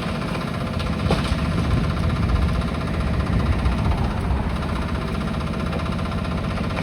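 Diesel engine of a demolition machine running steadily at a building demolition, with a faint knock about a second in.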